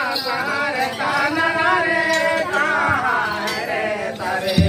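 A group of people singing a folk song together, several voices overlapping, with one short low thump near the end.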